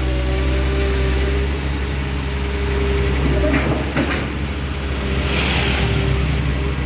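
Heavy diesel machinery engine running steadily, with a few short knocks partway through and a brief hiss.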